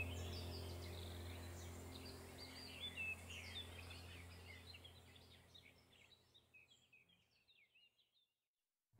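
Birds chirping over a low steady drone, part of an ambient nature soundtrack, all fading out together to silence about seven seconds in.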